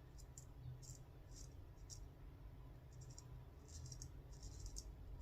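Faint, short rasping scrapes of a Kukri 11/16 straight razor cutting through lathered stubble: a few single strokes about half a second apart at first, then quicker runs of strokes in the second half.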